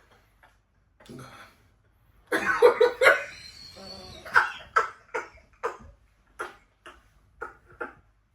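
A person coughing in a bout: a loud burst of coughs a little over two seconds in, then a string of shorter coughs, about two a second.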